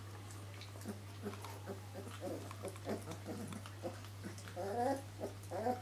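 Greater Swiss Mountain Dog puppies licking each other's faces: soft wet smacks and licks, with two short pitched puppy grunts near the end.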